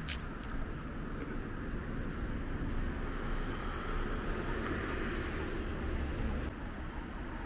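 Street traffic: a vehicle passing close by, its noise swelling in the middle and fading near the end, over a steady low rumble.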